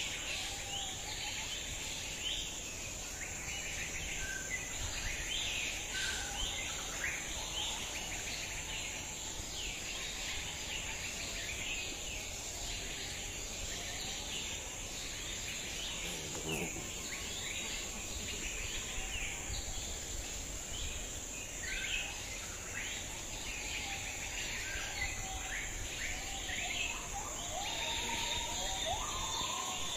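Rural outdoor ambience: a steady high-pitched insect drone with frequent short bird chirps. A few lower, clearer bird calls come in near the end.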